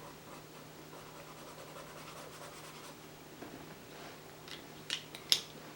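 Pastel pencil scratching in quick, soft strokes across vellum-surface mixed media paper. A few sharp clicks come near the end, the loudest about five seconds in.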